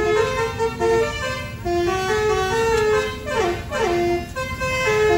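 Musical multi-tone bus horn (Indonesian 'telolet'/'basuri' type) playing a tune of held notes that step up and down, with a falling slide of pitch a little past the middle, over the noise of slow traffic.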